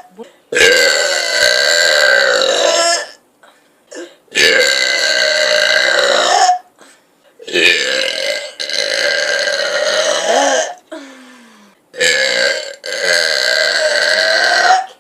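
A series of long, drawn-out burps, each lasting two to three seconds, with short pauses between them.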